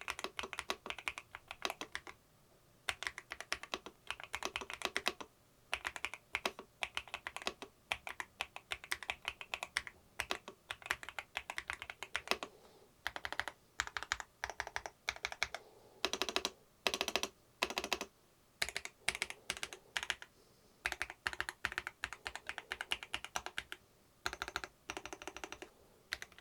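Typing on an Ajazz AC100 aluminium, gasket-mounted mechanical keyboard with Butter Ice Cream linear switches: fast runs of keystrokes in bursts, broken by brief pauses every few seconds.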